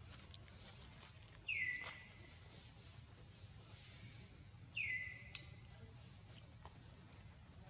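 An animal call twice, about three seconds apart: each is high-pitched, sliding quickly down and then holding one steady note for about half a second. Under it runs a faint steady hiss.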